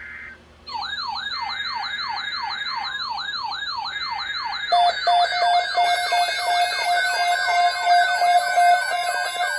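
Emergency alert tones: an electronic siren-like tone sweeping up over and over, about two and a half sweeps a second, under a buzzing data warble. About five seconds in, a pulsing steady alarm beep joins, and the two sound together.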